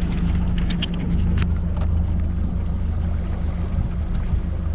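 Boat outboard motor running steadily at low, putting speed: a constant low hum. During the first two seconds, sharp clicks and knocks from the camera being handled and turned around.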